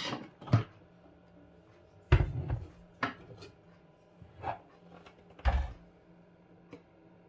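Kitchen utensils and containers being handled and set down on a counter: a string of separate clunks and knocks, with two heavier thuds about two seconds and five and a half seconds in.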